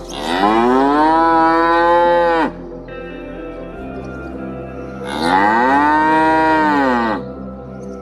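Cattle mooing: two long moos, each about two seconds, rising in pitch, holding and then dropping away, over soft background music.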